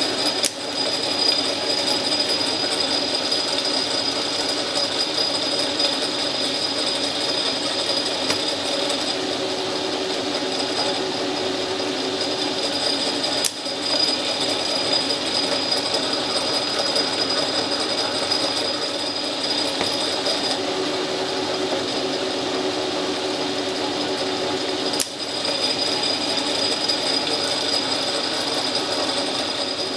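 South Bend metal lathe running under power in screw-cutting mode, a steady whine and gear hum as a single-point tool cuts threads on a rod. Three sharp clicks cut through it: just after the start, near the middle, and a few seconds before the end.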